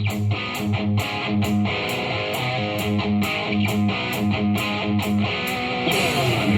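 Rock music with electric guitar and a steady drum beat of about three hits a second, played through a JBL Flip 5 portable Bluetooth speaker.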